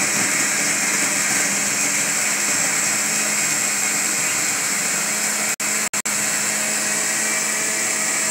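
Countertop blender running steadily at speed, blending oats, carrot and naranjilla with water. Three split-second gaps cut through the sound a little past the middle.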